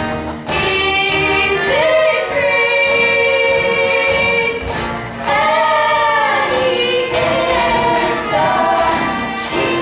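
Stage musical number: several voices singing together over accompaniment, holding long notes, with short breaks between phrases.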